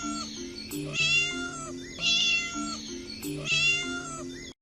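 Kitten meowing, a short high meow about once a second, over a simple low tune. The same two-second stretch repeats, and everything cuts off suddenly near the end.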